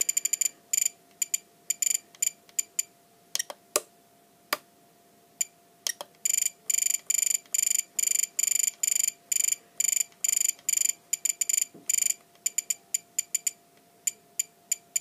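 Spektrum DX8 radio transmitter beeping with each detent of its scroll roller as a mix rate value is dialled through: short high beeps, scattered singly and in quick runs, running almost continuously from about six to twelve seconds in.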